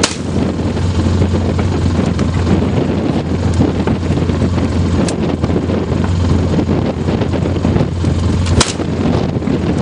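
Steady low drone of a utility vehicle's engine running, with shotgun shots: a loud one at the start and another about eight and a half seconds in, and fainter reports in between.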